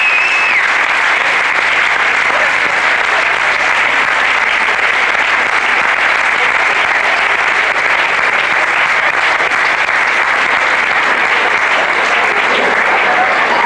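An audience in a hall applauding steadily, many people clapping at once.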